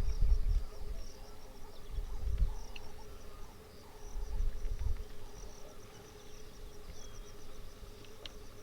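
Natural outdoor ambience: insects and small birds chirping continuously, with a steady hum underneath. Three low rumbles come about two seconds apart in the first five seconds.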